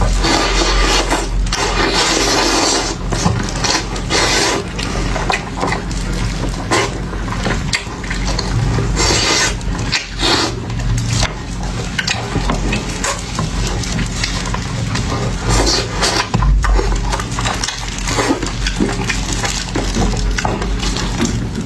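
Close-miked eating sounds: chewing and crunching of fried pork ribs, with a steady run of wet clicks and clinks of utensils on the dish.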